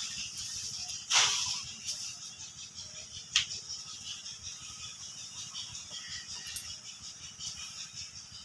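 Mango branches and leaves rustling as they are handled, with a short rush about a second in and one sharp crack about three and a half seconds in, over a steady high hiss.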